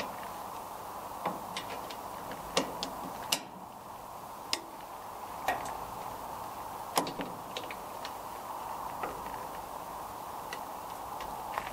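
Irregular sharp clicks and clinks of a spanner working a 19 mm nut on the tractor's battery cable fittings, about one a second, over steady background noise.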